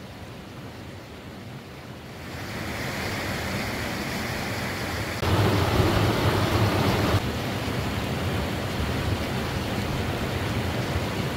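Rushing water of small waterfalls pouring over rocks into a shallow stream pool, a steady splashing hiss. It is faint at first, builds about two seconds in, jumps louder about five seconds in and drops back about two seconds later.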